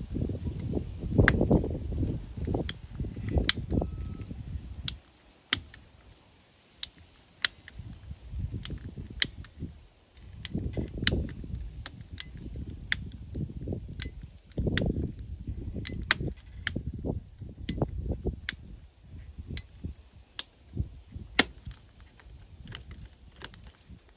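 Hand ratcheting pipe cutter working through a 2-inch pipe: a run of sharp clicks, roughly one or two a second, as the handle is squeezed and the blade ratchets in. Low rumbling handling noise comes and goes between the clicks.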